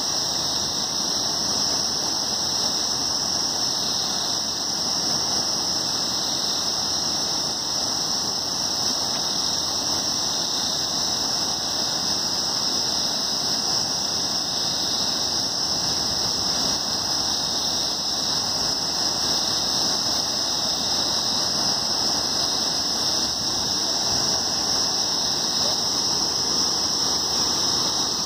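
Steady rush of a fast mountain river over rocks, with a continuous high-pitched drone on top of it.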